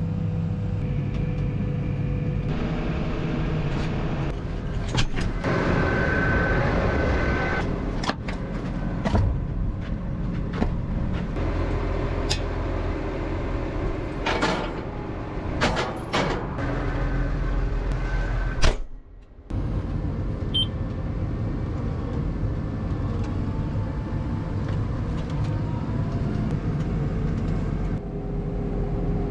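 Farm tractor engine running steadily while hauling wheat wagons, with scattered knocks and rattles. The sound cuts out briefly about two-thirds of the way through.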